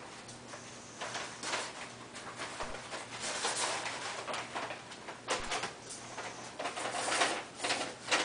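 Brown paper bag rustling and crinkling in irregular bursts as foam blocks are pushed into it and it is handled.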